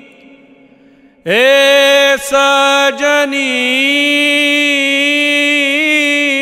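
A male voice singing a Bhojpuri song comes in about a second in after a short pause and holds long, slightly wavering notes, with only brief breaks.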